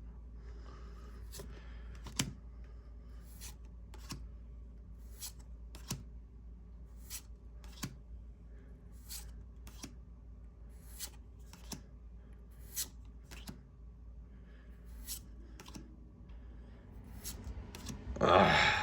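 Pokémon trading cards being flipped one at a time through a freshly opened booster pack, each card giving a short dry click, roughly once a second. A louder voice sound starts near the end.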